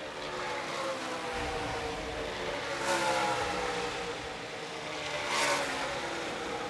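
Race truck V8 engines running at speed on the track in the distance, a steady drone sliding down in pitch, with two louder passes about three and five and a half seconds in.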